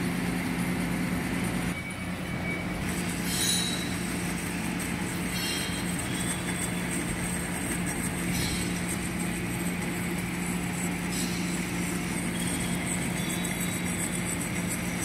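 Metal lathe turning the outside of a bronze split bushing held in a three-jaw chuck: a steady machine hum with brief higher-pitched hisses now and then.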